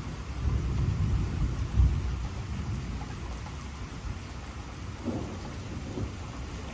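Rain falling steadily, with a low rumble of thunder rolling through the first two seconds and easing off.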